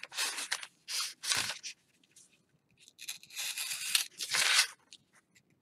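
Sheet of paper being cut and handled: a few short scratchy strokes, a pause, then a longer stretch of rustling and cutting about three seconds in.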